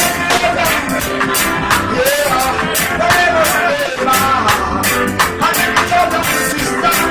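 Live dancehall music: a vocalist singing a melody over a backing track with a steady, fast drum beat.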